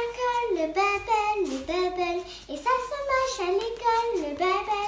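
A young girl singing solo and unaccompanied: one child's voice carrying a short melody in separate phrases with brief breaks between them.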